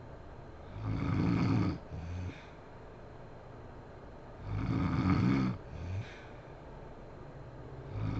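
A sleeping woman snoring, two long snores a little under four seconds apart, each followed by a shorter, quieter one.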